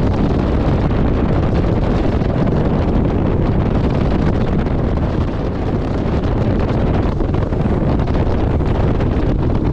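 Loud, steady wind buffeting on the microphone of a 2002 Fountain 35 Lightning powerboat running at about 50 mph, mixed with the boat's engine and water noise.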